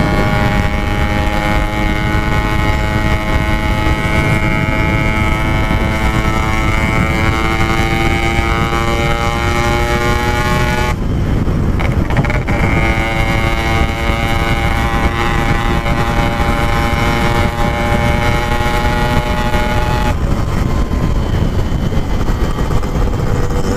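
Yamaha RX-King 135's two-stroke single-cylinder engine running under way at cruising speed, its pitch easing slowly downward, with a brief dip about halfway through and another change near the end. Wind rushes steadily on the microphone underneath.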